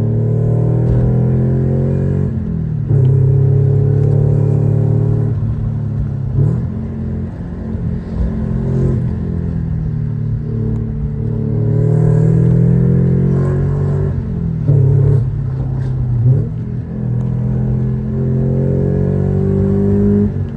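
NB Mazda Miata's turbocharged four-cylinder, fitted with an unequal-length exhaust manifold, giving a Subaru-like boxer rumble as the car pulls through the gears. The pitch climbs and drops several times at the shifts.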